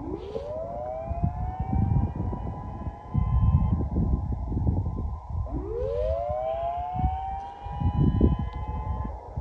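Federal Signal SiraTone electronic siren on its manual whoop through high-power speakers: two rising whoops about five and a half seconds apart, each sweeping up quickly from a low tone and levelling off high. Gusty wind rumble runs underneath.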